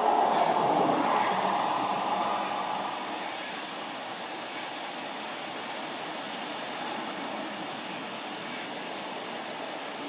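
Wind noise, a gust in the first three seconds that eases into a steady lower hiss.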